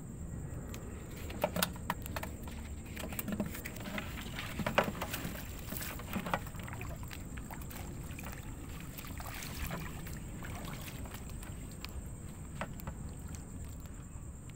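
Feet wading through shallow water, with splashes and sloshing over a steady low rumble. A run of sharper splashes and knocks comes in the first half, and fewer later.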